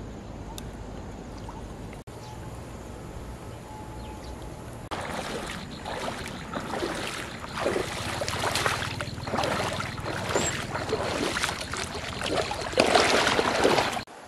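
Footsteps splashing and sloshing through shallow muddy floodwater, starting about five seconds in as irregular surges that grow louder and are loudest near the end. Before that, only a low steady background noise.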